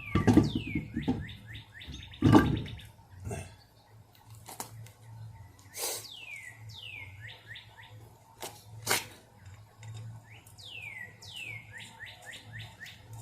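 A songbird sings the same phrase three times, each a long falling whistle followed by a quick run of four or five shorter falling notes. Two loud thumps come within the first few seconds and a few lighter knocks later, over a low steady hum.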